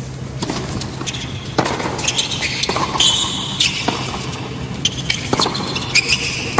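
Tennis rally on a hard court: a few sharp racket strikes and ball bounces, roughly a second or more apart, over a low steady hum.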